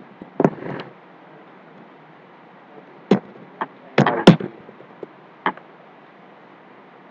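Computer keyboard keys being struck: a few light clicks early on, then a loose run of about six sharp key presses roughly half a second apart, from about three seconds in, as Enter is hit again and again.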